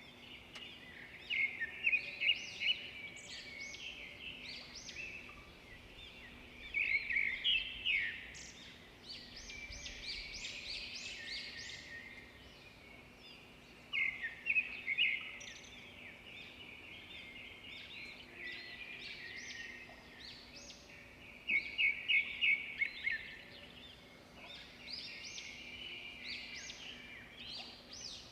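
Wild birds singing: several overlapping chirping and trilling phrases, with louder bursts of rapid repeated notes a few times.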